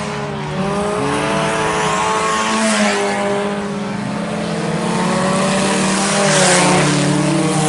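A pack of IMCA Sport Compact race cars running on a dirt oval, several four-cylinder engines going at once with their pitches rising and falling as the cars lift and accelerate. One car passes close about six seconds in.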